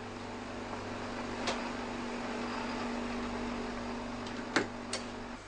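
Laboratory freezer running with a steady hum, with a few sharp clicks from handling at the cabinet, the loudest a little over four seconds in; the hum cuts off just before the end.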